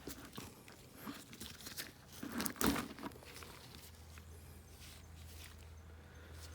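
Rustling, crinkling handling noises with a few sharp clicks, loudest about two and a half seconds in, then a low steady hum.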